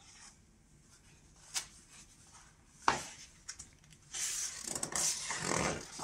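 Hand turning a page of a hardcover picture book: a couple of light taps and clicks from handling the book, then the paper page rustling and swishing over for about two seconds, starting about four seconds in.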